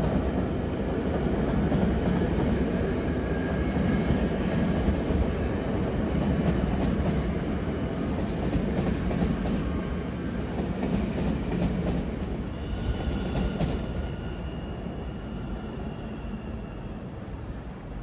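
Electric passenger train running on the tracks: a steady rumble with wheel clatter, dying down over the last few seconds, with a faint high whine near the end.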